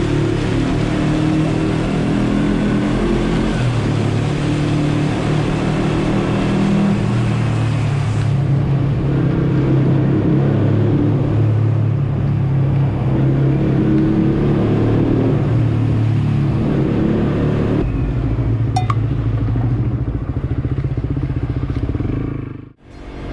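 Suzuki GSX-S125's single-cylinder four-stroke engine running under way, its note rising and falling with the throttle, over steady wind and road noise. The sound drops out sharply near the end.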